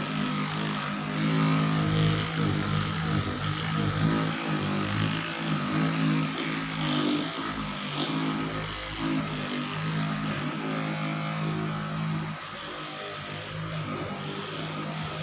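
Handheld electric Dolphin vibrating massager running with a steady motor hum, dropping slightly in level about twelve seconds in.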